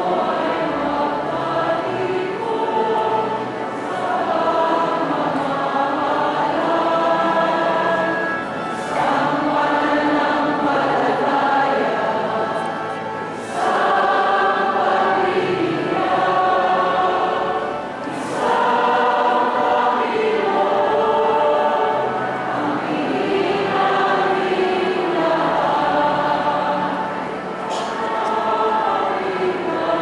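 A choir singing a church hymn in long held phrases, with short pauses between them.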